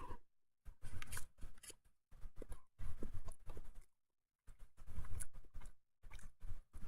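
A person chewing a bite of a pulled-pork sandwich on a roll, close to the microphone, in a few separate stretches of moist chewing with short silent gaps.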